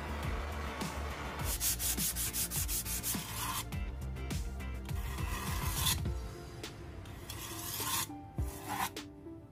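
Chinese cleaver blade being stroked back and forth across a whetstone during sharpening: quick repeated scraping strokes at first, then longer, slower strokes, getting quieter near the end. The first second or so is the steady hiss of a small butane torch flame.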